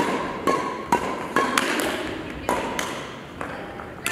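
Badminton rackets hitting shuttlecocks: sharp, irregular hits, about eight in four seconds, each with a short ringing ping from the strings.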